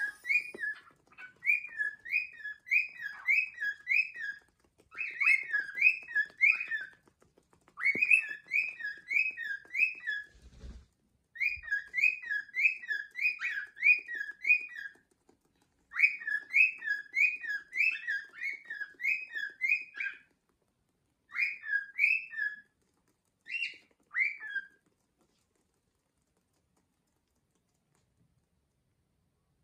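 Cockatiel chirping in quick runs of four to six short whistled notes, about three notes a second, phrase after phrase with short gaps, stopping a few seconds before the end. A single dull thump comes about ten seconds in.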